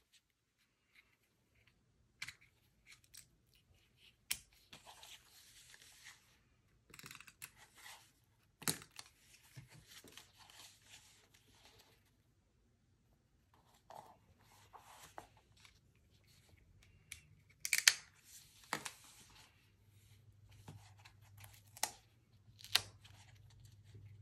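Paper-crafting handling sounds: short rasping passes of a small handheld adhesive roller on paper, then a photo cut-out laid on a diary page and pressed and smoothed down. Scattered sharp clicks and taps stand out, the loudest about halfway through and twice near the end.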